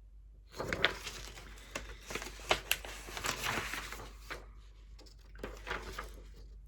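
Paper rustling and crinkling as printed sheets are handled and turned, with small clicks of the pages, in two spells.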